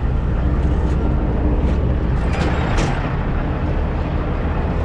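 Heavy diesel truck running steadily on the road, a deep low rumble with road noise over it, and a few light clicks or rattles around the middle.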